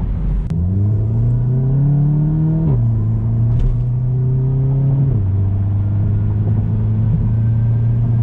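Volkswagen Mk7 GTI's turbocharged four-cylinder, fitted with a Clubsport muffler, pulling hard with rising pitch. About two and a half seconds in, the pitch falls abruptly as it shifts up, and it then runs steadily with another small drop about five seconds in.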